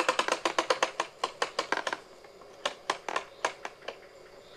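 Rapid train of sharp clicks from the cocking mechanism of a rubber-band-powered drop-hammer press being worked by hand, thinning out after about a second to a few scattered clicks.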